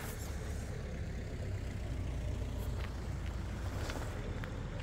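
Absima Sherpa electric RC crawler creeping downhill over dirt and gravel, its motor and gears giving a faint steady whine, with a few small clicks of stones under the tyres over a steady low rumble.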